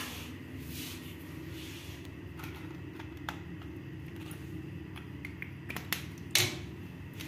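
Small clicks and taps of a marker pen and a plastic reagent-strip tray being handled during labelling, over a steady low hum. A sharper click comes about six and a half seconds in.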